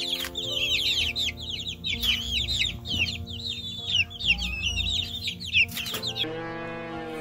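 Many chicks peeping at once, a dense chatter of high chirps that stops about six seconds in, over soft background music. A lower, drawn-out call begins near the end.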